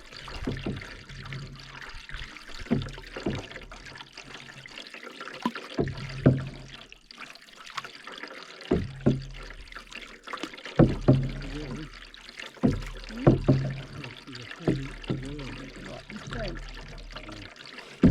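Canoe paddles dipping and pulling through lake water, with splashes and trickles off the blades about every two seconds.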